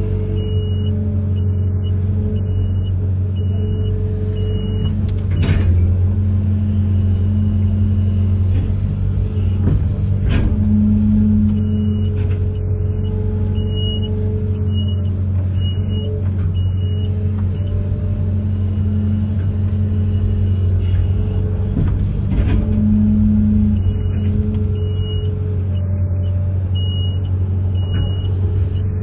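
Amphibious excavator's diesel engine running steadily with a low hum, while a high-pitched warning beeper sounds about twice a second in three stretches of a few seconds each. A few sharp knocks come through now and then.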